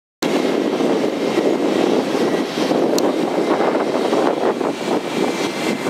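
Airbus A320 jet engines running at taxi power: a steady rumble with a faint high whine, and a short click about halfway through.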